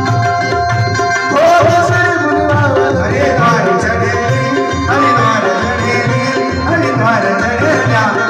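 Garhwali devotional song (bhajan): a hand drum keeps a steady repeating beat under held chord tones, and a wavering melody, likely sung, comes in about a second and a half in.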